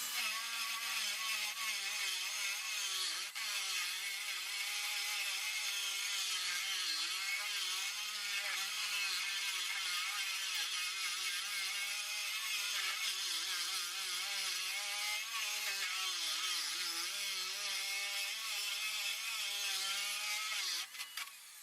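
Power grinder grinding off the steel remains of a seized sway bar link stud and nut, running steadily with a wavering motor whine over a continuous grinding hiss, then stopping just before the end.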